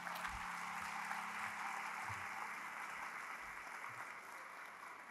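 Audience applauding steadily after a speech, fading out near the end.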